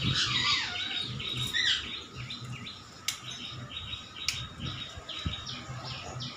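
A litter of young German Shepherd puppies squeaking as they nurse: a steady, overlapping stream of short, high chirp-like squeaks, several a second.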